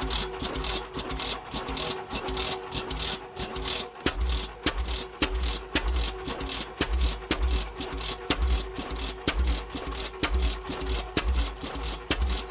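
Slow-running oilfield 208 engine on a pump jack, going at an even pace with sharp clicks and low beats about twice a second over a steady hum.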